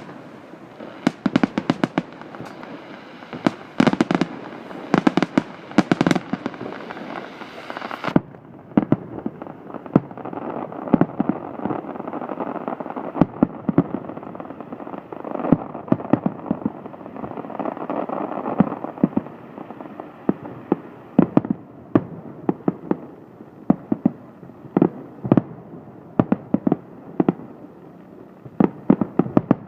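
Aerial fireworks bursting in quick, irregular succession: many sharp bangs over a continuous din of further bursts.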